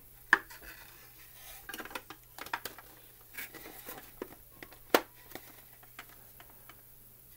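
Hard clicks, knocks and light rubbing as the Bandai Legacy Red Ranger helmet replica is worked onto its display base, pressed on until it locks into place. Two sharper knocks stand out, about a third of a second in and about five seconds in.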